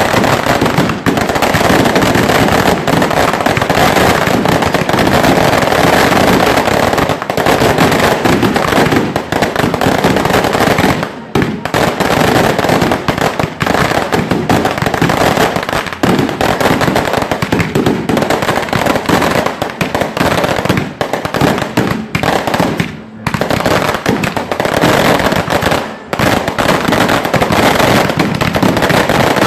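A fireworks barrage of firecracker bangs: a dense, unbroken run of rapid bangs and crackling, with a few brief lulls.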